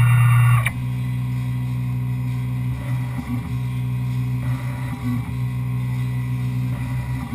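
Tormach 1100M CNC mill running with flood coolant while milling a part: a steady mechanical hum, louder with a high whine for the first second or so.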